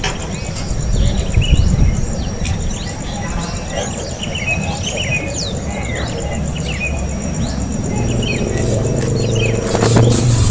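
Small birds chirping in many short, quick calls over a steady, high, pulsing insect buzz. A low rumble runs underneath, and a low steady hum rises near the end.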